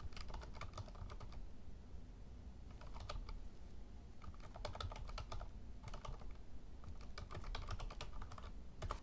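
Typing on a computer keyboard: several runs of quick keystrokes with short pauses between them, as a terminal command is typed.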